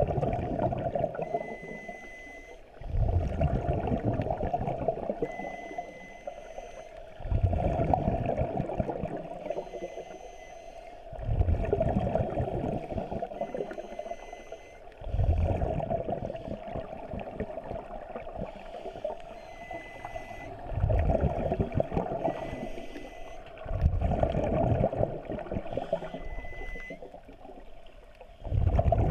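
Scuba diver breathing through a regulator: a burst of exhaled bubbles rumbling up and fading roughly every four seconds, eight times over. Short faint high tones sound between some of the breaths.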